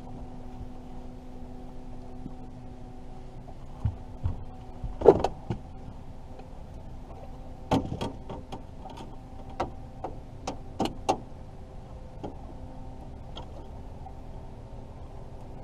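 A catfish being landed over the side of a fishing boat: a steady low hum, then a run of sharp knocks and clatters, the loudest about five seconds in and a quick series between about eight and eleven seconds in.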